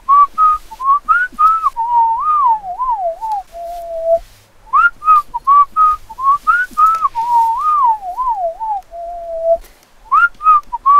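Background music: a whistled tune with light percussive taps, playing the same short phrase twice. The phrase climbs, wavers and ends on a lower held note.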